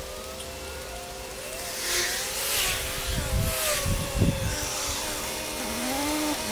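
Cars passing on a wet road, their tyres hissing as they go by, with three passes close together from about two to four seconds in.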